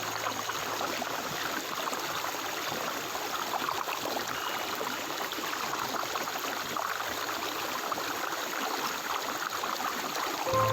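Stream water flowing and trickling steadily.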